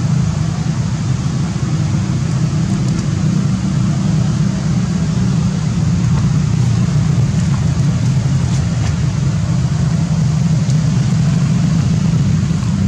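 A steady, loud low engine hum, like a motor vehicle idling, with a few faint ticks over it.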